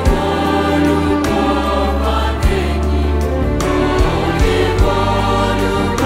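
Mixed choir of men's and women's voices singing a hymn in Russian, holding long sustained chords over a steady low accompaniment, with a few soft beats about two and a half, four and five seconds in.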